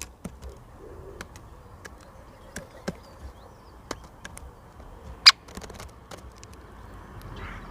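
Woodpecker pecking: a string of sharp, irregularly spaced taps, with one much louder knock about five seconds in.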